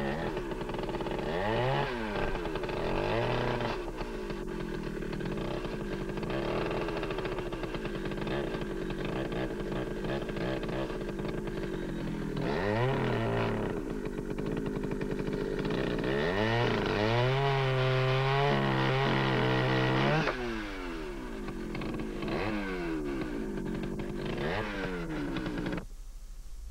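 Two-stroke chainsaw cutting into a hickory log, revving high while it bites and dropping back several times between passes. The sound cuts off abruptly near the end.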